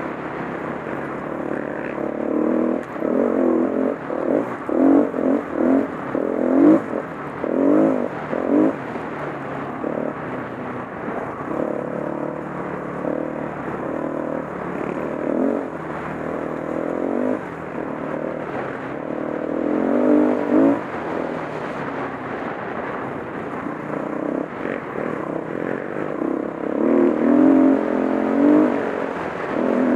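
Single-cylinder four-stroke dirt bike engine under way, the throttle opened and closed in repeated surges. The loudest, quick-fire bursts come a few seconds in, around two-thirds through and near the end.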